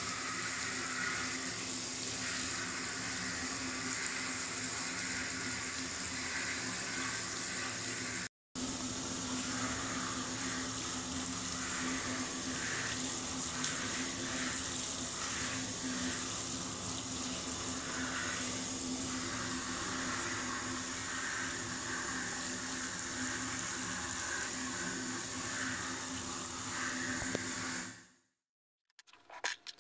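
Steady rush of running water that fades in at the start, cuts out briefly about eight seconds in, and fades away near the end.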